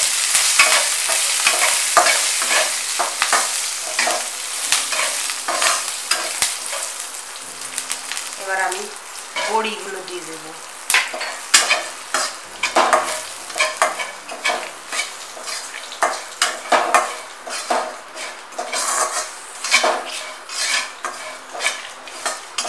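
Ghee sizzling in a nonstick kadai with green chillies, dried red chillies and panch phoron, stirred with a spatula. The sizzle fades after the first few seconds. Crushed badi (sun-dried lentil dumplings) are then stirred through the pan with repeated spatula scrapes, about one a second.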